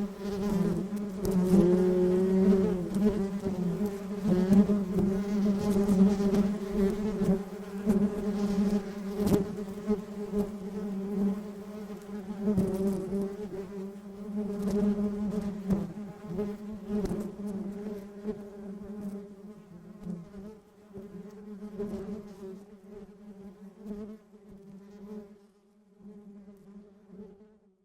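A swarm of honeybees buzzing in a dense, steady hum, with scattered brief ticks, gradually fading away over the last several seconds.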